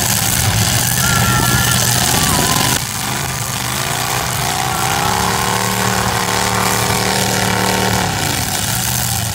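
Demolition derby cars' engines running loudly; about three seconds in one engine revs up, holds high for several seconds, then drops back shortly before the end.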